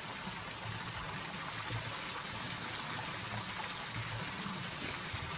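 Steady trickling water, an even hiss with no breaks.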